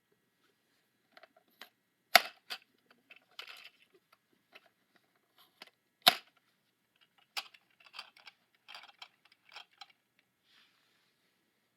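Scattered plastic clicks and small knocks from a toy robot being handled, with two sharp, louder clicks about two seconds in and again about six seconds in.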